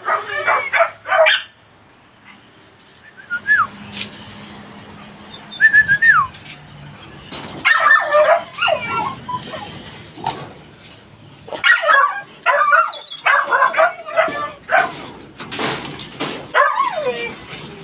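Caged dogs barking and yelping in short bursts, with high whines that slide down in pitch at about 3.5 and 6 seconds in.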